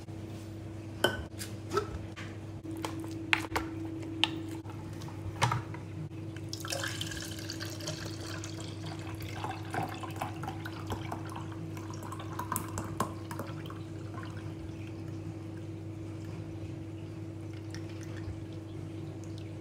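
A few sharp plastic knocks and clicks as the juicer parts are handled, then orange juice poured from the juicer's jug into a plastic measuring beaker: a splashing pour starting about six seconds in that thins to a trickle. A steady low hum underneath.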